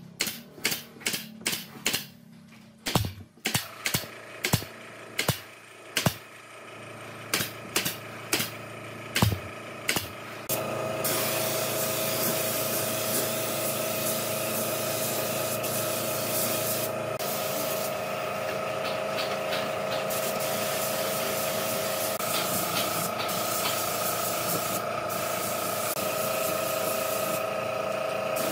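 About twenty sharp, irregular knocks, roughly two a second, as wood is struck with a tool. Then, about ten seconds in, an electric power tool starts and runs steadily on the wood, a motor hum under a rushing hiss.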